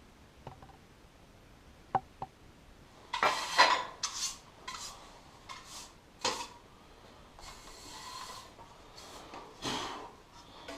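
Handling noises while the fan mount is being assembled: two sharp clicks about two seconds in, then repeated rough scraping and rubbing.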